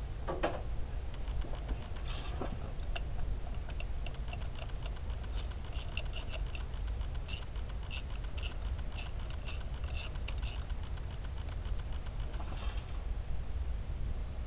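Ratchet clicking rapidly and evenly while turning a 10 mm coil-pack bolt, with a few louder clicks and knocks of the tool against the engine.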